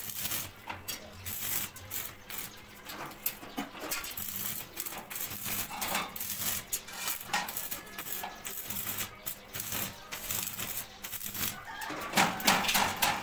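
Stick arc welding on steel grill bars: the electrode arc crackles and spits irregularly, louder near the end.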